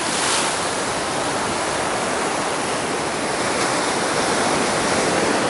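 Sea surf breaking and churning against coastal rocks: a steady rush of white water, with a brief surge just after the start.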